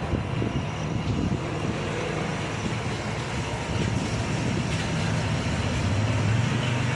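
Midea air conditioner running with a steady low hum and hiss.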